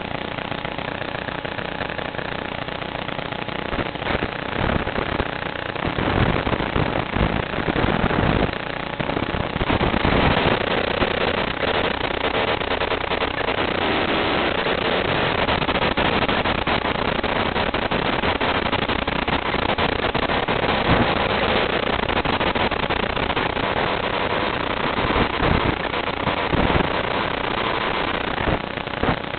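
Harsh static and rushing noise on the audio channel of an analog FPV video feed from an IRC Tramp HV transmitter, swelling in surges a few times. The owner describes it as a horrible noise and static.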